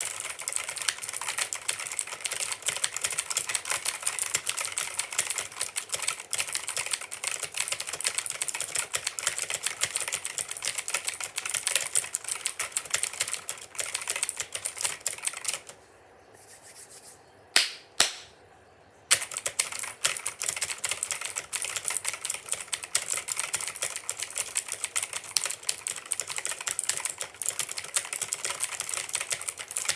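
Mechanical keyboard typed on fast, a dense clatter of key clicks. Around the middle the typing stops for about three seconds, broken by two louder single key strikes, then resumes.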